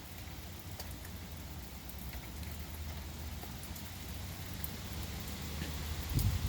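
Steady rain falling, an even hiss with a few sharp drip ticks, and a low bump near the end.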